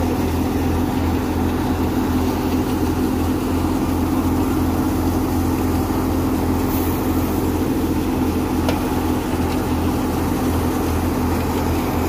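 Belt-driven wheat thresher running steadily while wheat is fed through it: an even, unbroken mechanical drone.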